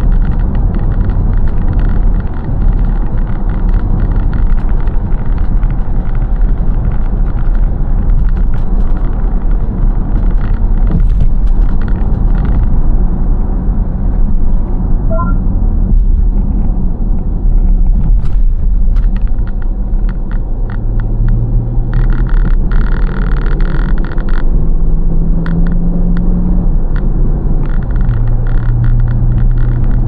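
Car driving along a road, heard from inside the cabin: a steady, loud low rumble of road and engine noise. In the second half the engine note rises and falls.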